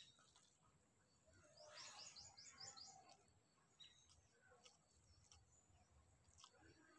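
Near silence with faint bird chirping: a quick run of about six high notes about two seconds in, then a few faint clicks.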